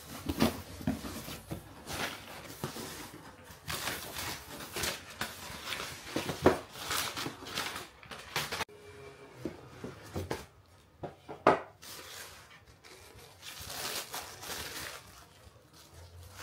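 Packaging being handled and opened by hand: a cardboard box and a paper gift box shifted and knocked, and tissue paper rustling, in irregular rustles with a few sharp knocks, the loudest about six and a half and eleven and a half seconds in.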